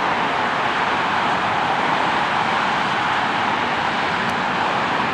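Steady, even rushing noise of distant vehicles, with no rise or fall in level.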